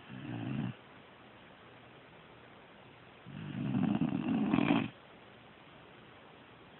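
Snoring: a short snore at the start and a longer, louder one about three seconds later, each a low rattle.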